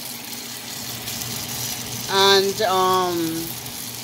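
Steady hiss with a low hum, under a woman's voice saying a drawn-out "and" about two seconds in.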